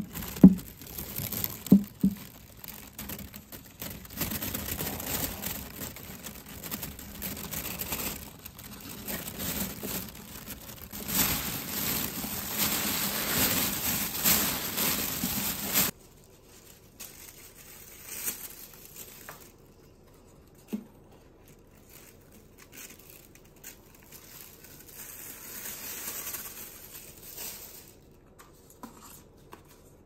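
Plastic bag crinkling and rustling as ground meat and chopped vegetables are mixed by hand inside it, loud and continuous for about the first half. After that it drops to faint, occasional rustles.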